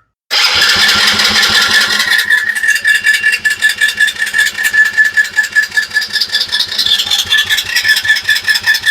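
The small engine of a kids' Chinese ATV cranking on its electric starter, boosted by a jump box: a steady starter whine over rapid even compression pulses, turning over without catching. It is a no-start, with spark suspected next.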